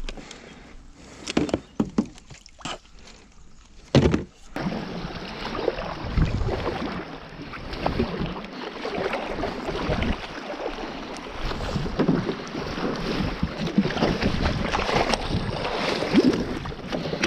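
A few sharp knocks and handling rattles against a kayak, then from about four seconds in steady kayak paddling: paddle blades splashing into river water, with water washing along the hull.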